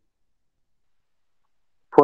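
Silence between spoken words, with no background sound at all. A man's voice starts right at the end.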